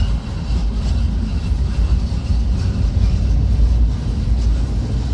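Long freight train's cars rolling past, a steady low rumble.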